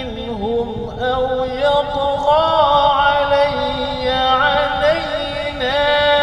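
A man's voice chanting an Arabic ruqyah supplication in a slow, drawn-out melody, holding long notes that bend and glide, with no clear word breaks.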